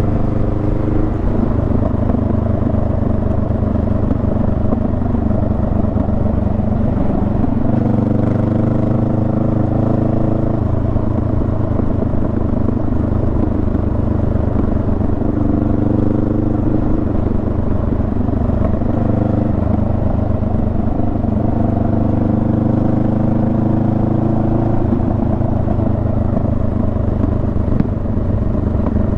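Honda Rebel 500's 471 cc parallel-twin engine running while riding. Its note steps up and down several times as the rider works the throttle and gears.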